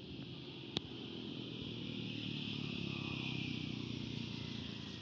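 Outdoor background noise: a steady low rumble with a higher hiss that swells in the middle and fades again, and a single sharp click about a second in.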